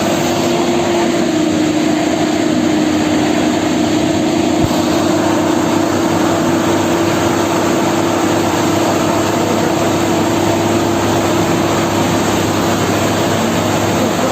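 Heavy diesel engine running loud and steady, with one constant droning tone over the engine noise. A single short click about four and a half seconds in.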